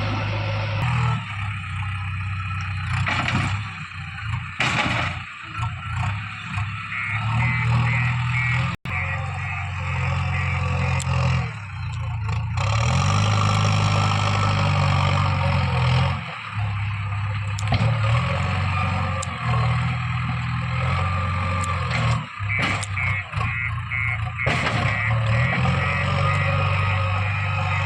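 Diesel engine of a JCB 3DX backhoe loader working, its revs rising and falling again and again as the machine digs and loads.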